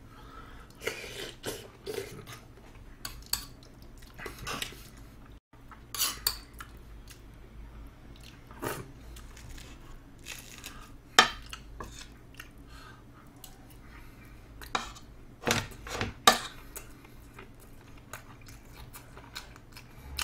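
Metal spoon and fork clinking and scraping against plates, a steel tray and a stone soup bowl while eating, with some chewing between. The clinks come singly and irregularly; the sharpest are about 11 and 16 seconds in.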